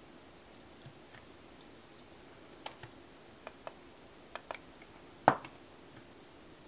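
Small, sharp clicks and taps of long artificial nails against a plastic nail-art stamper as it is handled and pressed onto a nail, about eight in all, with one louder knock a little past five seconds.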